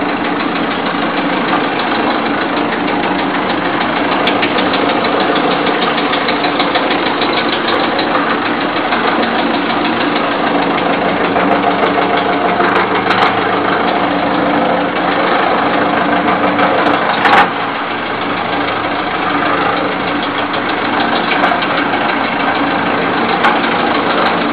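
Wood shaving machine running: its belt pulley and cutter disc spinning with a steady loud mechanical hum and a fast rattle, and one sharp knock about 17 seconds in.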